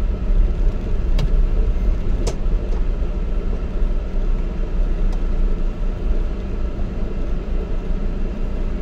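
Low steady rumble of a vehicle driving slowly on a gravel road, heard from inside the vehicle, with two sharp clicks in the first few seconds.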